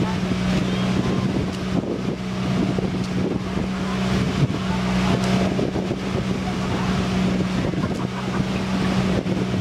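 Banka boat's small engine running steadily underway, a constant drone that holds its pitch, over a steady rushing noise.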